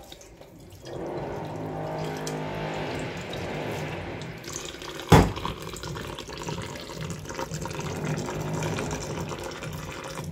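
Kitchen tap running into a stainless-steel sink, the water splashing over a steel saucepan and onto chhena in a cloth-lined strainer as the fresh cheese is rinsed with cold water. A single loud knock about five seconds in.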